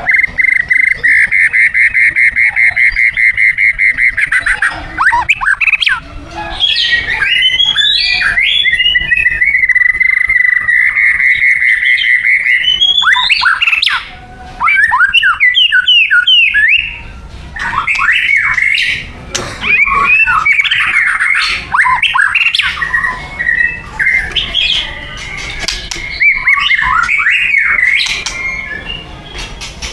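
White-rumped shama (murai batu) singing loudly. It opens with a fast trill of rapidly repeated notes lasting about four seconds, then moves into a varied run of whistles, quick rising and falling sweeps and rattling phrases, with brief pauses.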